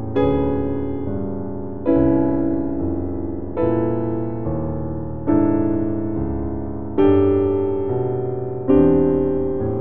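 Keyboard music, piano-like: slow chords struck about every second and three-quarters, each fading away before the next.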